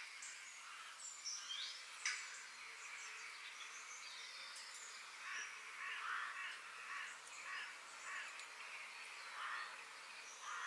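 Woodland birds calling: short chirps and trills from several birds, with a few rougher calls through the middle and near the end, over a faint steady hiss of forest ambience.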